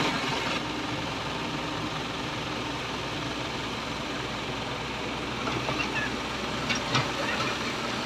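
Komatsu PC78 excavator's diesel engine running steadily, with a couple of short clicks about seven seconds in.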